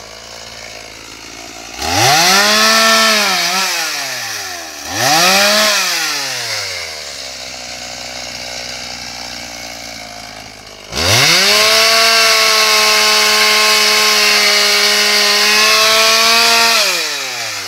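Gasoline chainsaw idling, then revved up twice briefly, about two and five seconds in, each time falling back to idle. About eleven seconds in it is held at full throttle for roughly six seconds, then drops back toward idle near the end.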